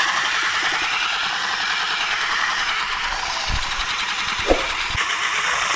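Electric drill running steadily with a spade bit boring into a hard oak log, the bit struggling to cut. A few short low knocks about three and a half to five seconds in.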